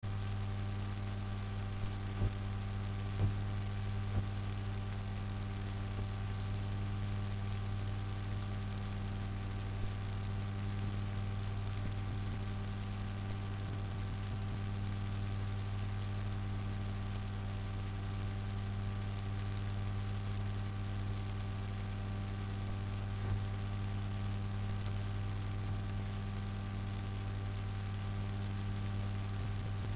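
Steady electrical mains hum with an even hiss beneath it, and a few faint clicks about two to four seconds in.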